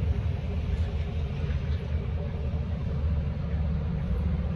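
Steady low rumble of vehicle engines as cars drive over the railroad crossing.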